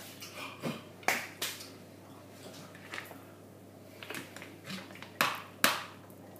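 A few sharp knocks and taps of kitchen utensils being handled, three around a second in and two louder ones near the end.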